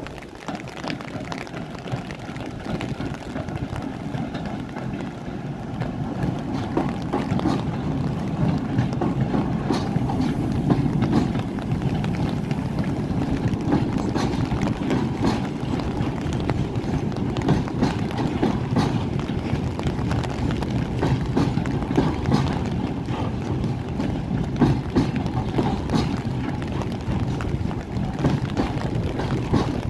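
Long freight train of loaded flatcars rolling past at close range: a steady rumble of steel wheels on rail with many sharp clacks as the wheels cross rail joints and switches. It grows louder over the first ten seconds or so as the ER20CF diesel-electric locomotive draws near and passes, then holds steady.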